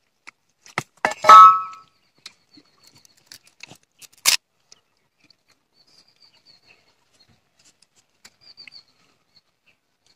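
A knife working apart a germinated palmyra seed's fibrous shell: a couple of light knocks, then one loud short crack about a second in, and a single sharp click about four seconds in. After that it is mostly quiet.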